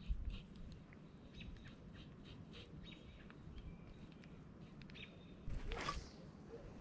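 Faint, scattered bird chirps. Near the end comes a short swish as a spinning rod is swung into a cast.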